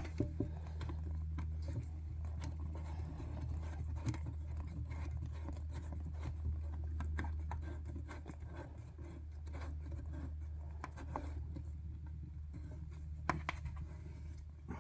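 Plastic nut being threaded by hand onto the shank of a new toilet fill valve: soft scratching and small scattered clicks over a steady low hum.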